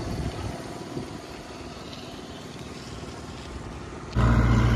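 Scooter ride: a low, uneven rumble of the scooter's engine, wind on the microphone and road noise. About four seconds in it jumps abruptly to a louder, steady low drone of riding at speed.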